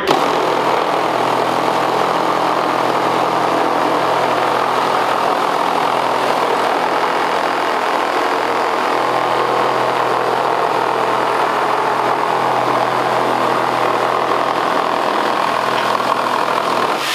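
Two 12-volt cordless reciprocating saws, a DeWalt DCS312 and a Milwaukee M12 Fuel Hackzall 2520-20, running at the same time with Diablo bi-metal wood blades, cutting down through a 2x4 stud under hanging 5-pound weights. The steady sawing stops at the very end.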